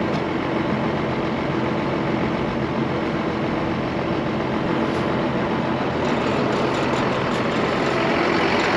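Large farm machine's engine idling steadily, a constant low hum under a broad mechanical rumble.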